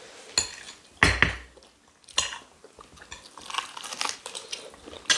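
Cutlery clinking and scraping on glass plates of rice and beans during a meal: a few separate sharp clinks, the loudest about a second in, between quieter scrapes.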